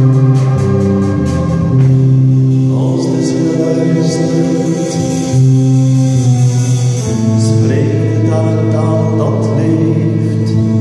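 Live music: a men's choir singing a slow, sustained song with bowed and plucked string accompaniment.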